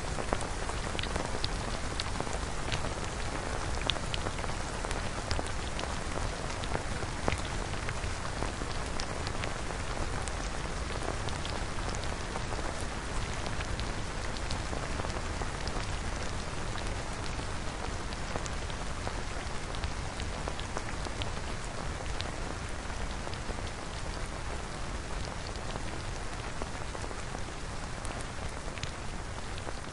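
Synthesized rain sound effect: a steady hiss of falling rain with scattered individual drop ticks.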